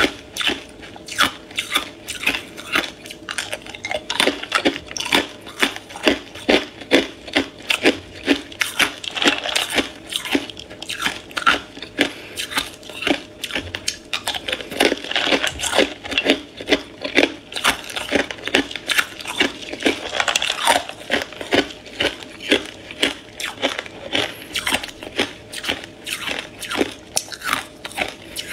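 Hard ice cubes being bitten and chewed: a continuous run of sharp crunches and cracks, about three a second.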